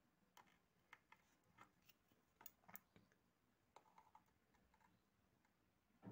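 Near silence: faint room tone broken by about a dozen short, irregular clicks and ticks.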